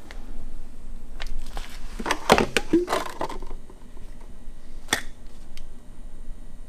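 Small clicks and light knocks of motorcycle fork parts being handled on a workbench, with a busy run of clattering about two seconds in and one sharp click near the end.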